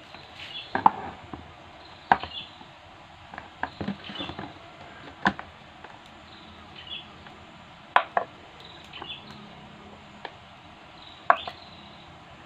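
Kitchen knife slicing blocks of fresh tempe on a wooden cutting board: irregular sharp knocks a second or more apart as the blade strikes the board, with quieter cutting sounds between.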